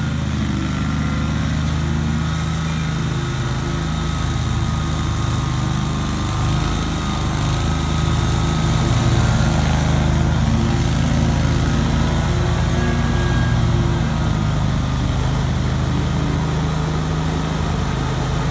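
A 2003 Great Dane 52-inch stand-on mower's engine runs steadily and works hard under load as the deck cuts through tall, thick grass. It gets a little louder in the middle stretch.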